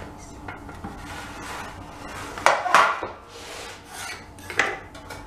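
Baked pizza being slid off a metal baking tray onto a wooden board: scraping and knocking on the tray, with a few sharp clatters about halfway through and another near the end.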